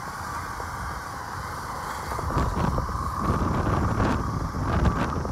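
Motorcycle running along a rough dirt road, with wind on the microphone. The low rumble grows louder about two seconds in, with a few short knocks.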